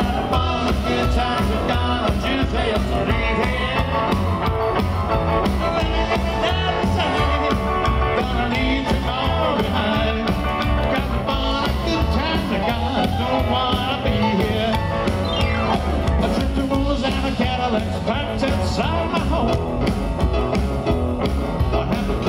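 Live rock and roll band playing: electric guitar, upright double bass, drum kit and keyboard over a steady beat.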